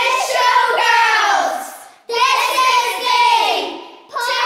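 A group of young girls singing together in short phrases, each ending in a falling pitch, with a brief break about two seconds in and another near the end.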